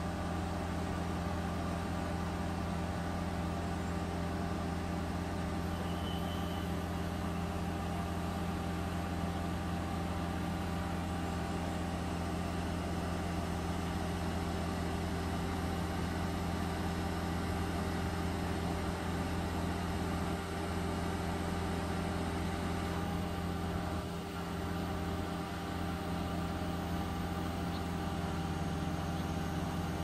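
Concrete pump truck's diesel engine running with a steady low drone, driving the hydraulics as the boom unfolds and swings into position.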